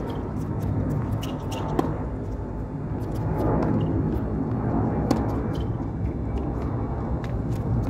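Tennis rally: racquets hitting a tennis ball back and forth, heard as sharp, separate hits over a steady low rumble.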